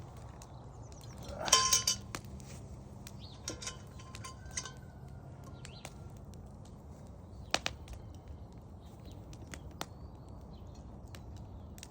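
Metal camp cookware clinking: a pot lid handled with one loud ringing clank about a second and a half in, then a few lighter clinks and taps.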